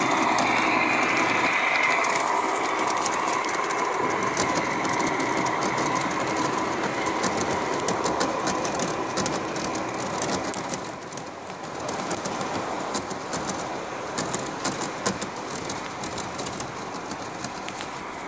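Model freight train behind a diesel switcher locomotive rolling along its track, wheels clicking over the rail joints. It is loudest as the locomotive passes close at the start and fades as the train runs away down the straight.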